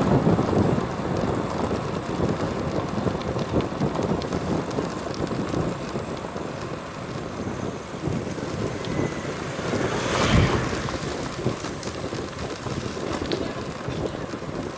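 Wind buffeting the camera microphone while cycling along a road, an uneven rumbling rush, with a brief louder rush about ten seconds in.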